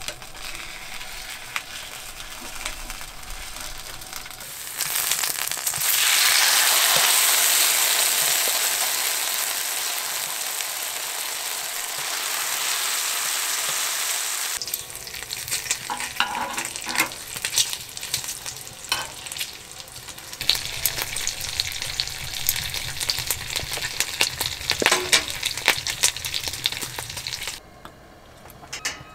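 Food frying in a hot pan. A loud sizzle swells up about five seconds in and eases off, then it cuts to a spitting, crackling fry that runs until near the end.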